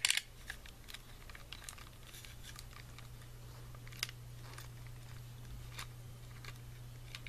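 Scattered light clicks and ticks of a Phillips screwdriver working the small screws out of a plastic car alarm siren housing and the parts being handled, over a steady low hum.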